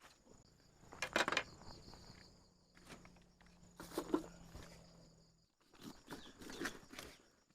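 Insects chirping steadily outdoors, with irregular rustles and crunches of movement through vegetation, three main clusters. A faint low hum underneath stops about two thirds of the way through.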